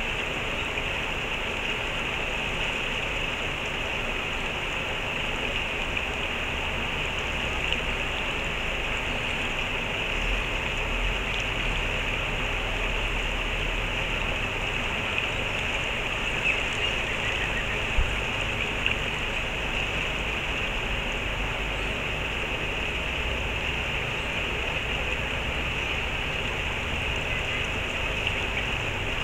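Steady rush of flowing stream water, even throughout with a few faint low rumbles.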